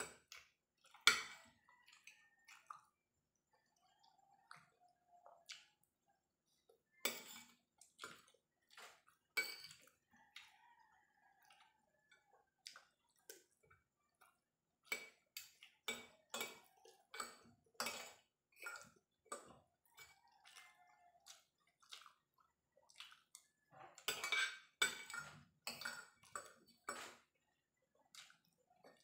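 Metal fork and spoon clinking and scraping on a ceramic plate in irregular clicks, scooping up the last of the rice. The clicks come thicker about seven seconds in and again from about fifteen seconds on, loudest around twenty-five seconds.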